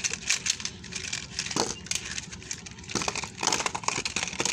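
Small toy cars clattering and rattling against one another as a handful is tipped out and handled, a dense run of quick clicks and knocks.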